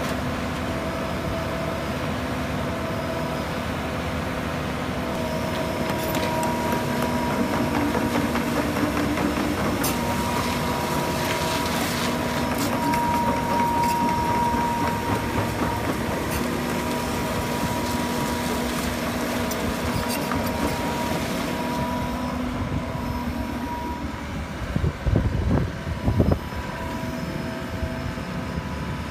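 Cat 308D excavator's diesel engine and hydraulics running, with steady whining tones; the pitch steps up briefly about eight seconds in. A few heavy knocks come near the end.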